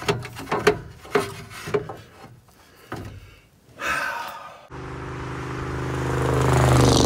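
A few light knocks and clatters, then a pickup truck driving past: its engine grows steadily louder to a peak near the end and drops in pitch as it passes.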